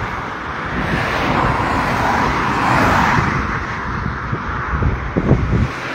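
A car passing on a highway, its tyre and engine noise swelling to a peak about three seconds in and then fading away.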